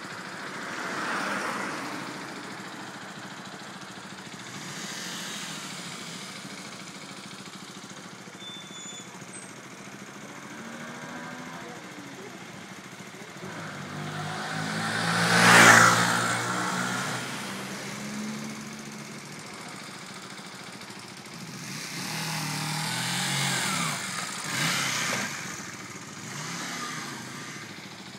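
125 cc motorcycles riding past along a street. The loudest pass, about halfway through, swells to a peak and fades over a few seconds. Weaker passes come near the start and over the last few seconds.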